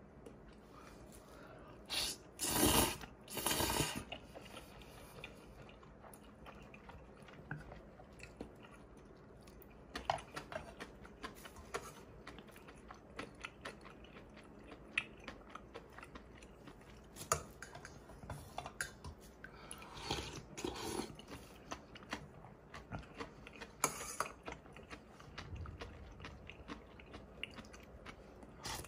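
Close-miked eating sounds: a person chewing black-bean instant noodles and the cold soup's cucumber and seaweed, with crunchy bites. There are a few louder bursts, the biggest about two to four seconds in, and short clicks of wooden chopsticks and a spoon against steel dishes.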